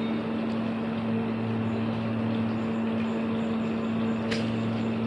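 Steady low mechanical hum, like a motor or engine running without change, with one short sharp click about four seconds in.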